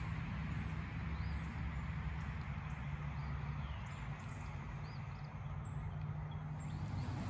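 Footsteps walking across pasture over a steady low rumble, with small birds chirping now and then.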